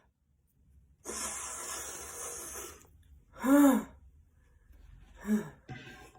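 A person sneezing, set off by an allergy attack: a long hissing in-breath, then one loud sneeze about three and a half seconds in, and a shorter, smaller one about five seconds in.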